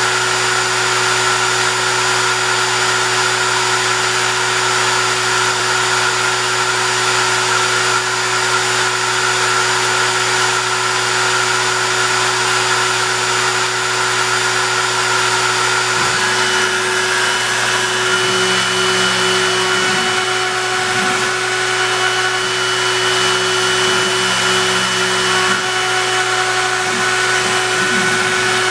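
Makita router on a DIY CNC machine running steadily as it carves a wooden sign, a loud, even machine whir. About halfway through, the pattern of tones changes, with pitches shifting from moment to moment.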